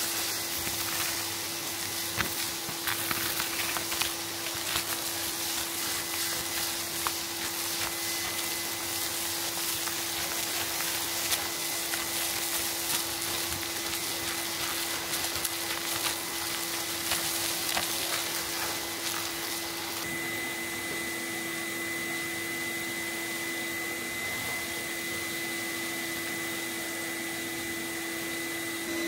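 Vacuum cleaner running steadily through a cyclone pre-filter, its nozzle sucking up fine dust and grit, which crackles and ticks up the tube. The crackling dies down about two-thirds of the way in, leaving a smoother, higher whine.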